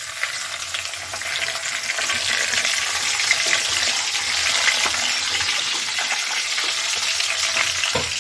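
Whole spices, bay leaf and dried red chillies, sizzling steadily in hot oil in an aluminium kadhai, with small crackles through the hiss.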